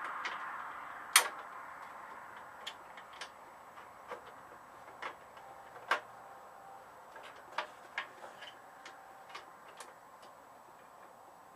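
Scattered, irregular clicks and taps of hand tools and small metal parts being handled while a snow blower's recoil starter is refitted, the sharpest click about a second in.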